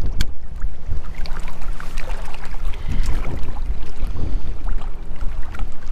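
Wind rumbling on the microphone and water lapping at a rocky shore, with light clicks and the low whir of a spinning reel being wound in on a retrieve.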